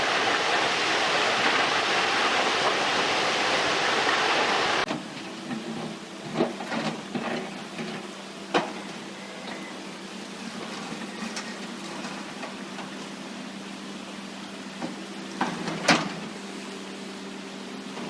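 Water rushing loudly through a breached beaver dam, cut off abruptly about five seconds in. It is followed by an excavator's engine running steadily at a low hum, with scattered sharp knocks and clanks, the loudest near the end.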